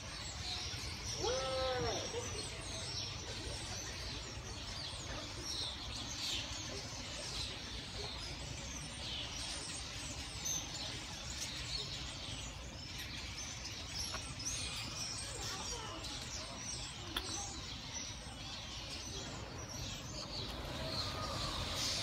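A large flock of starlings chattering, many short high chirps overlapping without a break, over a steady low background rumble. One lower, louder call stands out briefly about a second and a half in.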